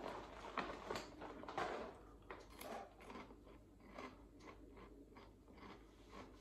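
A person chewing crunchy Calbee Grill-A-Corn corn puff snacks, a run of irregular crunches.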